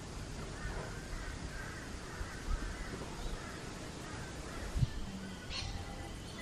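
Outdoor ambience with birds calling faintly over a low rumble, and a crow cawing once near the end.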